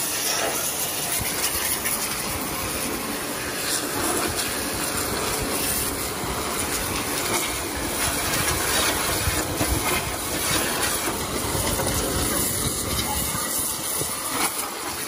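High-pressure washer jet hissing steadily as it sprays against the metal fuel tank and engine of an old tractor, blasting off hard caked mud.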